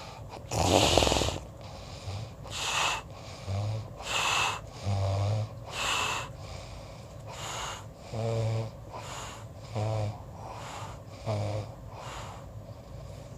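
Snoring: short, buzzing snores alternate with hissing breaths in a quick, regular rhythm, about one breath cycle every second and a half. The first snore, about a second in, is the loudest.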